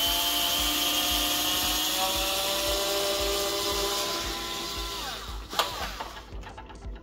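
Electric drill-driver backing a screw out of a coffee machine's plastic housing. The motor runs steadily for about five seconds, its pitch slowly rising, then stops. A sharp knock follows shortly after.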